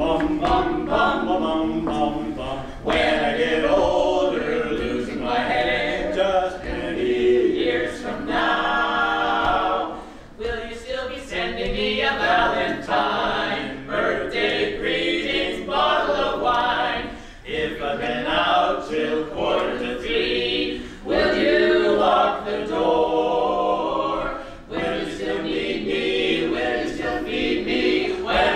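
Barbershop quartet of men's voices singing a cappella in close four-part harmony, in phrases with short breaks between them.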